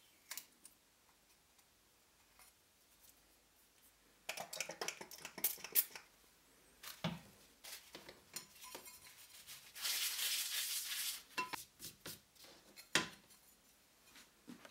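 Hands handling a small stainless steel plate: crackling of tape being peeled and crumpled, a few light knocks of the metal on the cutting mat, and about a second of steady rubbing as a paper towel wipes the plate about two thirds of the way in.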